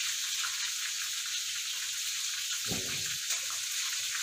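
Steady sizzling hiss of food cooking on the stove, with a brief low bump about three seconds in.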